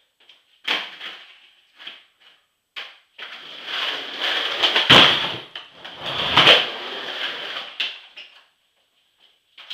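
Skateboard on a kitchen floor: a few sharp knocks of the board in the first three seconds, then about five seconds of wheels rolling with two heavy thuds in the middle of the roll.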